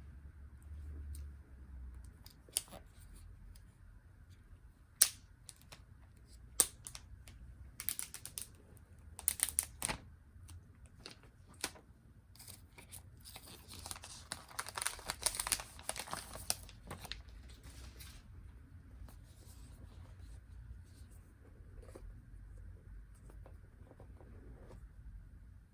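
Phone packaging being handled and opened: a few sharp taps and clicks, then a few seconds of tearing and crinkling about halfway through, then quieter handling.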